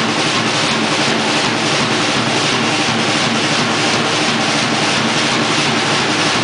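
Live rock band, with a drum kit played loudly under a constant wash of cymbals and acoustic guitars playing along.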